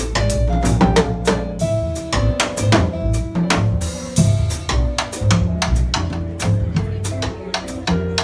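Jazz combo playing a bossa nova ballad with the drum kit to the fore: snare, toms, bass drum and rim hits played busily with sticks over walking upright bass notes and piano.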